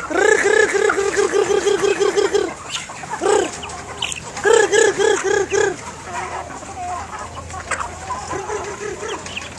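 Hens clucking in quick runs of short, repeated notes, about five a second: a long run at the start, another about halfway through, and a fainter one near the end.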